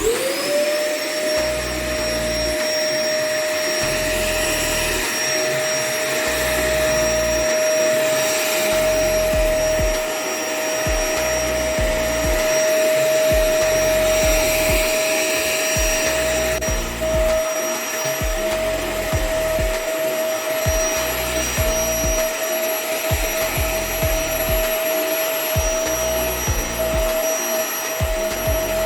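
Homemade workshop vacuum cleaner switched on: its motor spins up quickly at the start, then runs with a steady high whine over a constant rush of suction air.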